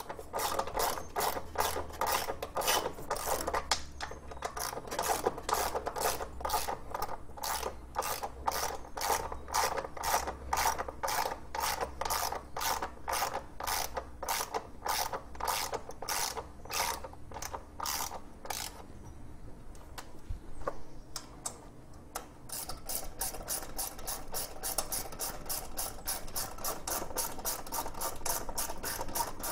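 Hand socket ratchet clicking in repeated strokes as bolts are run back in on a lawn tractor engine, about two clicks a second. It pauses briefly about twenty seconds in, then resumes with quicker, lighter clicking.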